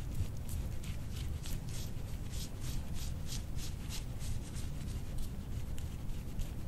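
Metal gua sha scraper stroking repeatedly over oiled skin on a back: short, even scrapes at about three a second. A steady low hum runs underneath.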